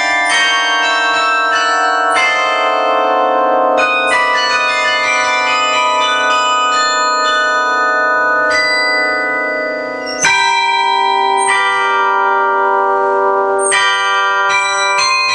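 Carillon bells playing a pop melody, each struck note ringing on under the next. The sound thins briefly, then a loud chord of several bells is struck at once about two-thirds of the way through.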